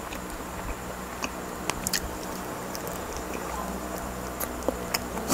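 Mouth sounds of eating grilled chicken off the bone: chewing and biting, with scattered sharp wet clicks and smacks over a steady low hum, the loudest smack near the end.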